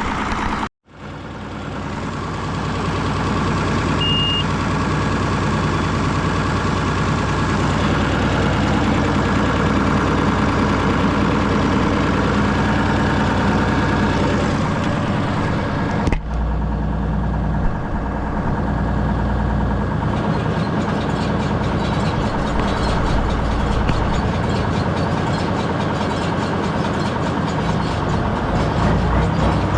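Deutz D130 06 tractor's air-cooled six-cylinder diesel running steadily while pulling a John Deere 566 round baler in the field. The sound cuts out for a moment about a second in, and a short high beep sounds a few seconds later.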